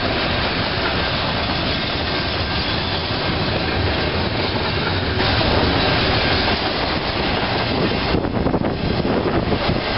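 Double-stack intermodal freight train cars rolling past close by: a steady rumble and clatter of steel wheels on rail. The noise changes abruptly about halfway through.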